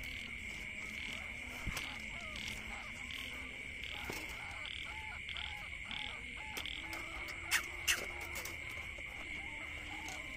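Night chorus of insects: a steady high buzz with a pulsed call repeating about every 0.7 s. Two sharp metallic clicks come just before 8 s in, as the wire-mesh cage trap is handled.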